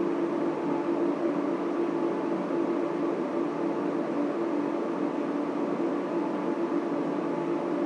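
Steady hum of a data center's server and cooling fans: an even, unchanging rush of air noise with a strong low hum and faint steady tones above it.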